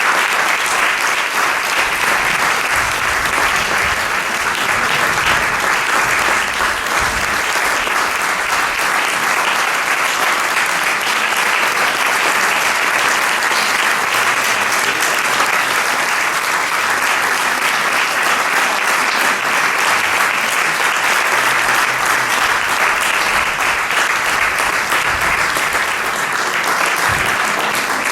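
Theatre audience applauding steadily: sustained, dense clapping.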